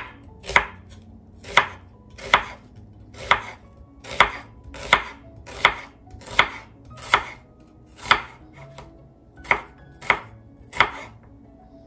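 A santoku-style chef's knife slicing half an onion on a hard cutting board: each cut ends in a sharp knock of the blade on the board. There are about fifteen cuts at an even, unhurried pace of somewhat more than one a second.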